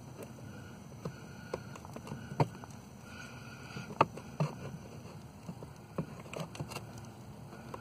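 Scattered light clicks and knocks of hand tools and parts being handled, over a low steady background hum.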